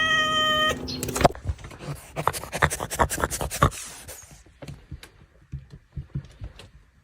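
A cat meowing: one held call at the start, followed by a run of sharp clicks and knocks that thin out over the next few seconds.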